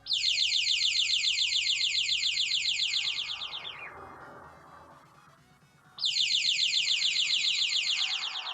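Electronic bird-chirp sound from an NE556 dual-timer circuit: rapid, evenly repeated high chirps, about six or seven a second. They die away with the pitch sagging about three and a half seconds in, then start again suddenly about six seconds in. Faint background music plays underneath.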